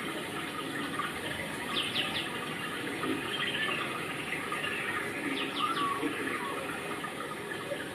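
Steady rain falling and splashing. A bird chirps twice, about two seconds in and again about five and a half seconds in, each time a quick run of three falling notes.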